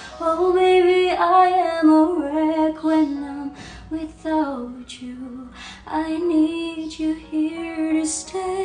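A woman singing a slow melody, holding long notes that glide from one pitch to the next.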